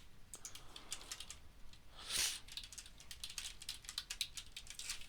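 Typing on a computer keyboard: a run of quick keystrokes, with a short hiss-like noise about two seconds in.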